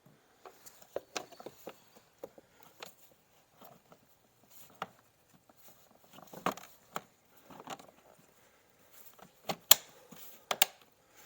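Parts being handled and fitted back in a car's engine bay: scattered light clicks and knocks, with two sharp snaps about ten seconds in.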